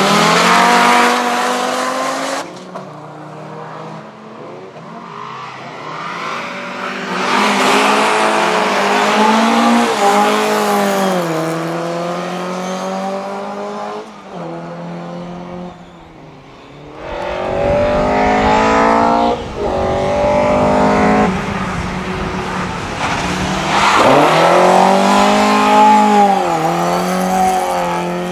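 Rally car engines revving hard as cars pass one after another, about four times. The pitch climbs and dips sharply as the drivers blip the throttle, change gear and lift through the corners.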